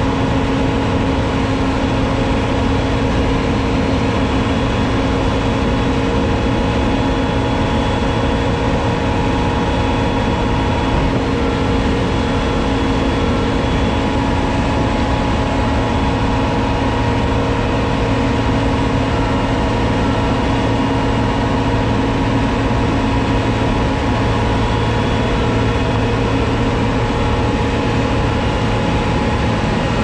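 John Deere S780 combine's diesel engine running steadily at a constant speed, with an even hum that does not change pitch.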